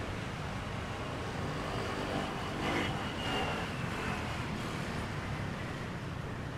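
Steady low engine rumble of motor vehicles, with a faint high whine for about a second near the middle.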